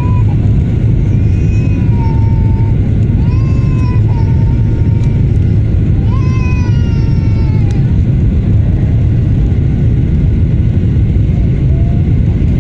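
Loud, steady low rumble of aircraft engines. Three drawn-out, high, slightly falling cries sound over it, about one and a half, three and a half and six seconds in.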